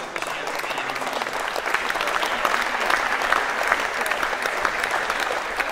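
Theatre audience applauding, the clapping swelling about two seconds in and easing off near the end.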